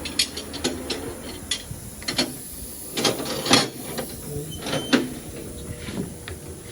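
Irregular clicks and knocks of tools and wheel parts being handled during a car tyre change, with a few louder knocks in the middle.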